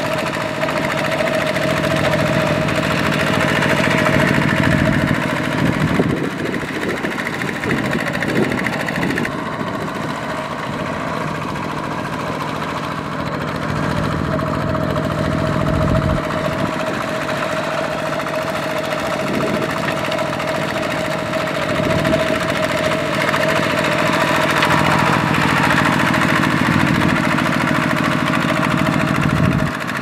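Two-wheel walking tractor's single-cylinder diesel engine running steadily under load while it churns through a flooded rice paddy.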